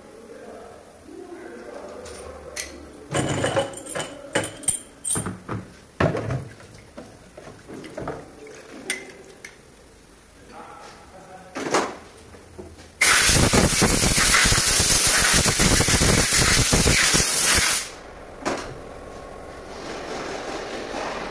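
Light metal clicks and taps of piston and connecting-rod parts being handled at the engine block. Then a loud, steady hiss lasts about five seconds and cuts off suddenly.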